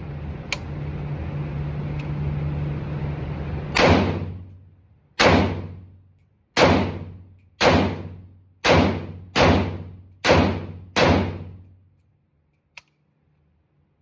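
Eight gunshots fired one after another, about a second apart and coming a little faster toward the end, each followed by a decaying echo. A steady hum comes before the first shot.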